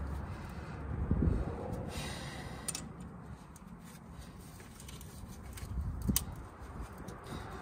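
Small clicks and handling noise from gloved hands working on hose connections in a truck's engine bay, over a low steady background rumble. Two sharper clicks stand out, about three and six seconds in.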